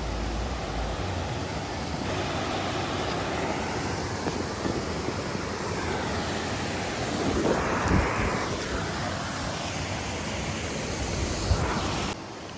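Stream water rushing over rocks: a steady, even hiss of running water, with a brief louder swell about eight seconds in. It drops away suddenly just before the end.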